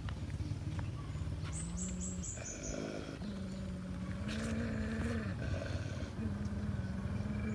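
Dogs growling in a fight: long, low, continuous growls held for a couple of seconds at a time, with short breaks between them. A quick run of high chirps comes about two seconds in.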